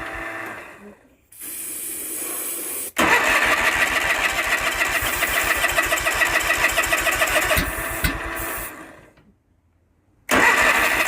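Short hiss of an aerosol starting-fluid spray, then the starter cranking the Kohler Magnum 18 twin-cylinder engine for about five seconds with a pulsing beat. The engine does not catch and run. Another burst of cranking comes near the end.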